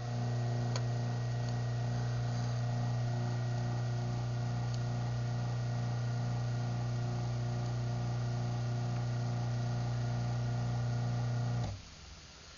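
Craftsman half-horsepower garage door opener's motor running steadily through a closing cycle as a hum, then stopping abruptly near the end as the cycle finishes.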